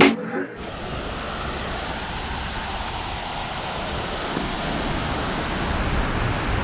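Water cascading down a stone fountain wall: a steady rushing that grows slowly louder, after a brief sharp click at the start.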